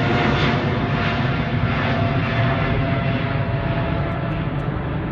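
Jet airliner's engines heard overhead as it climbs away: a steady rumble that slowly grows fainter and duller toward the end.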